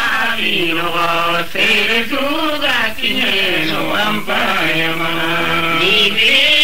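A man's voice chanting in long held notes, some steady and some wavering, with short breaks between phrases.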